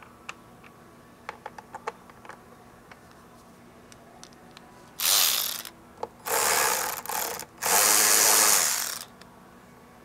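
A power ratchet running in three short runs, each about a second long, backing out a bolt on the upper air intake breather. Light clicks and taps from handling tools come before it.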